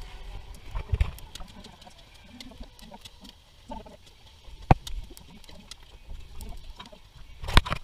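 Aluminium pot lid and spoon clanking against a metal cooking pot as the pot is uncovered and its contents stirred. There are sharp metallic clanks about a second in and near five seconds, the loudest just before the end, with softer scraping and clinking in between.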